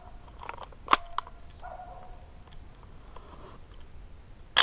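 Shots from an 11.5-inch 5.56 AR pistol: sharp cracks, three close together about a second in and another at the very end, with faint bird calls between them.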